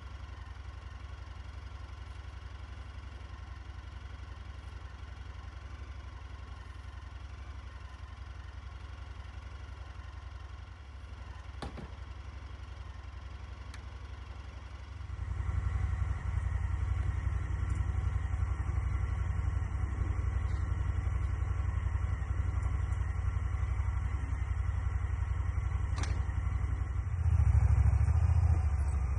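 Side-by-side utility vehicle's engine running steadily at low revs, then growing clearly louder about halfway through as it is throttled up and pulls harder, with a brief further rise near the end.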